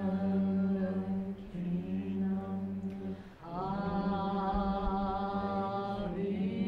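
Chanting voices holding long, steady notes. The chant breaks off about three and a half seconds in, then starts again on a new held note.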